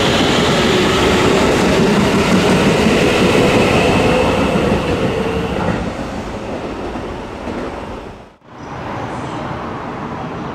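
Keikyu electric train at a station platform, the whine of its inverter-driven motors falling slowly in pitch over the rumble of the cars, then fading. About eight seconds in the sound breaks off abruptly, and a quieter steady train noise follows.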